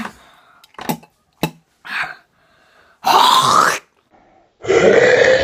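Boys gagging and clearing their throats with a mouthful of toothpaste: a couple of sharp clicks in the first second or so, then two long retching groans, one about three seconds in and one near the end.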